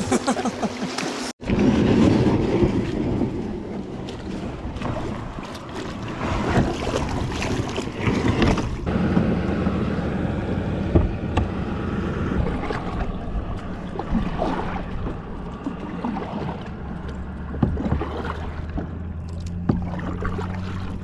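Wind buffeting the microphone over water sounds from a kayak on the river, a steady noisy rush with no speech.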